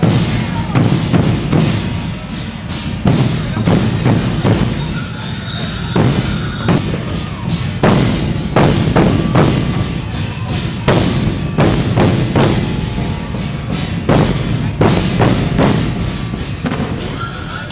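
Folión drum troupe beating large rope-tensioned bass drums (bombos) and smaller drums together in a steady, driving marching rhythm, deep booming strokes dominating.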